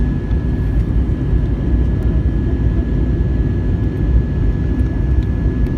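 Steady low rumble of engine and airflow noise inside an Airbus A321 airliner's cabin during descent, with a faint steady high whine over it.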